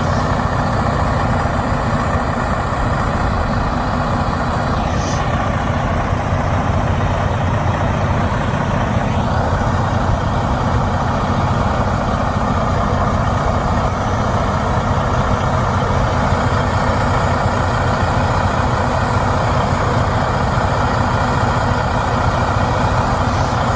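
Freightliner semi-truck's diesel engine running steadily, a constant low drone.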